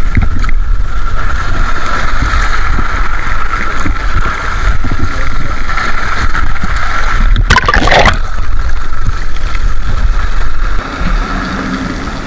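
Seawater washing and sloshing over shoreline rocks, with a steady drone and a low rumble throughout. A short, sharp noise comes about seven and a half seconds in.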